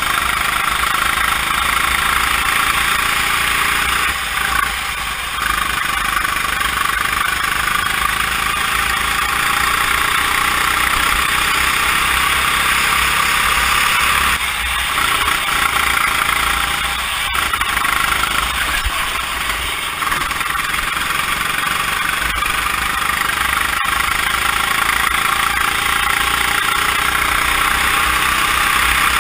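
Go-kart engine heard from the driver's seat, running hard through a lap. Its pitch climbs steadily along the straights and dips briefly about four seconds in, around fifteen seconds in and again near twenty seconds in, under a constant rushing noise.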